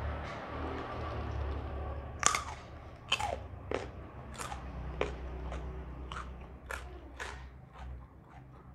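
Close-miked chewing of raw jengkol (dogfruit) dipped in sambal terasi: a sharp crunch about two seconds in, then more crisp crunches every half second to a second, over a low steady hum.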